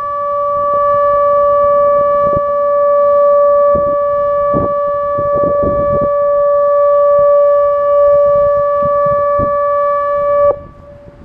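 Outdoor tornado warning siren sounding one loud steady tone that holds its pitch, then cuts off suddenly near the end.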